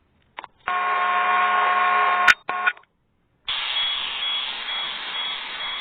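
Ceiling fan sounds, two different ones in turn, each starting and stopping abruptly. First a steady electric hum with several held tones for about two seconds, ended by a click. Then, after a short silence, a noisier whir for about three seconds.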